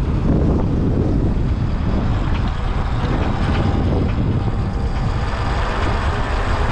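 Wind rushing and buffeting over the microphone, with tyre and road rumble beneath it, on a Sur-Ron X electric motorbike riding at speed into a headwind. The noise is loud and steady, with no engine note.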